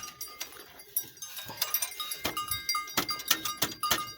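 Metal hand tools clinking and tapping: a spanner and socket being worked against a stuck glow plug on a diesel engine, with many sharp clicks, some ringing briefly.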